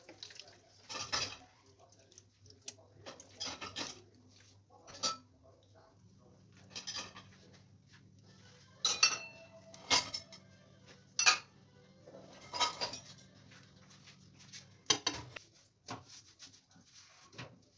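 Scattered clinks and knocks of kitchen handling on a plastic cutting board on a stone counter as raw beef intestines are moved about, a dozen or so irregular sharp strikes with the loudest about halfway through. A faint low steady hum runs underneath.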